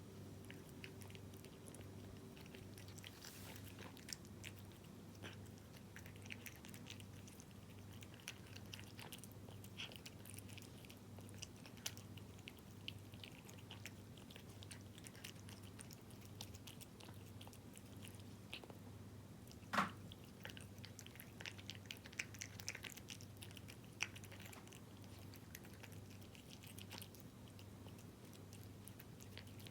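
A cat chewing and lapping wet tuna-in-jelly cat food: soft, wet clicks and smacks of its mouth, with one sharper click about twenty seconds in. A faint low hum pulses evenly underneath.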